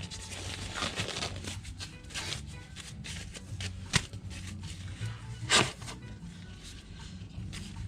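Hands rustling and handling objects, with scattered clicks, a sharp click about four seconds in and a louder scrape about a second and a half later, over a steady low hum.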